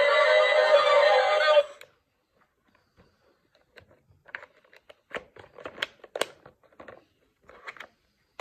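Toy car's built-in speaker playing a loud electronic sound that cuts off suddenly about two seconds in, followed by a series of light plastic clicks and rattles as the battery cover is fitted onto the toy's underside.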